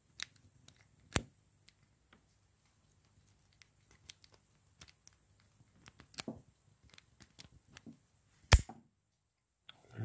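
Faint scattered metallic clicks and scrapes of an old Allen wrench raking the pins of a Master Lock No. 3 padlock under a tension wrench. About eight and a half seconds in, one loud sharp click: the lock opening.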